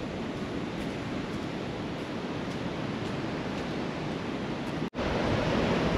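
Steady rushing noise of sea wind and ocean surf, with a brief dropout about five seconds in, where the recording cuts and the noise comes back slightly louder.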